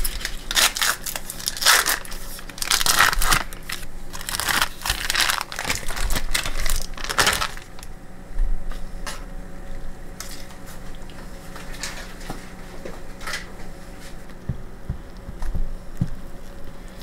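A cream cheese block's wrapper crinkling and tearing as it is peeled open and the cheese is squeezed out into a blender jar, in a quick run of crackles for about the first seven seconds. After that it is quieter, with a few light knocks of a spoon in a saucepan near the end.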